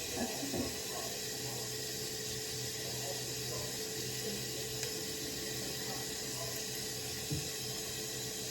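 Tap running steadily into a bathroom sink, with a few light knocks near the start and once more about seven seconds in.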